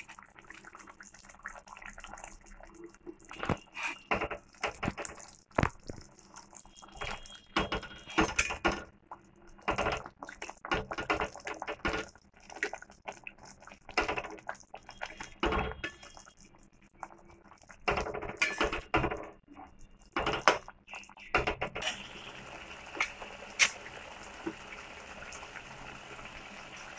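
Fried snakehead fish pieces being stirred into a yogurt curry in an aluminium kadai: irregular scraping and clinking of a spatula against the pan in short spells. About 22 seconds in the stirring stops and a steady hiss of the curry simmering takes over.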